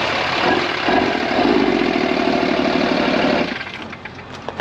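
Dodge Ram 2500 pickup's engine running right after being started to check for knocking following a hard front-end hit; it gets a little louder about a second in, then quiets abruptly about three and a half seconds in. The owners take it as running fine.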